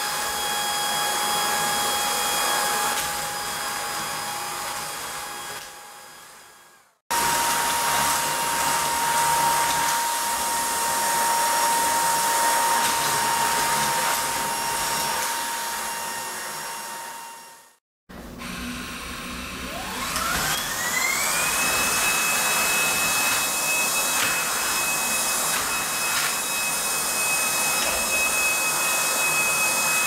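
Cordless canister vacuum cleaner running with a steady whine, cut off to silence twice. After the second gap the motor starts up, its whine rising over about three seconds, then runs steadily at a higher pitch.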